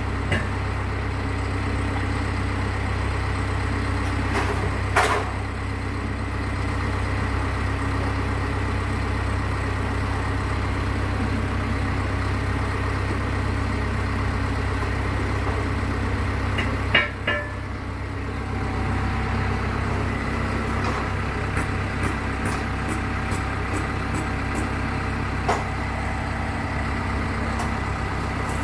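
An engine running steadily at an even speed, with a few sharp knocks or clanks, the loudest about five seconds in and again about seventeen seconds in.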